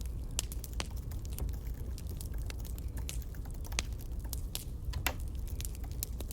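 Campfire crackling: irregular sharp snaps and pops, a few each second, over a steady low rumble.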